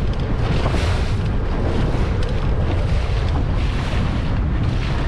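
Wind buffeting the microphone and water splashing and rushing under the bow of a moving pontoon boat in choppy water, a steady, gusty rush with no let-up.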